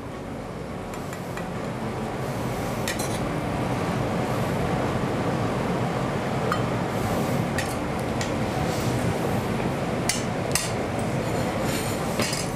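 A metal spoon clinking and scraping against a metal sauté pan as ravioli are lifted out onto a plate: scattered sharp clinks, with a few louder ones near the end. Under them is a steady rushing background noise that swells over the first few seconds.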